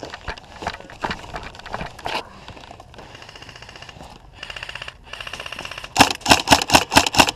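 Airsoft electric guns firing: a few scattered clicks, then fast rattling full-auto bursts from about three seconds in, then a string of louder sharp single shots about five a second near the end.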